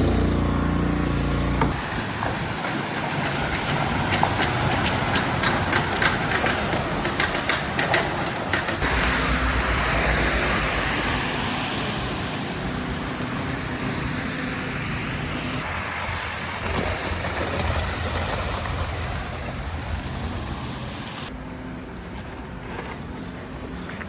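City street traffic on a slushy avenue. A vehicle's engine runs close by at first, then the sound gives way to cars passing, with tyres hissing through wet slush and a louder pass about ten seconds in.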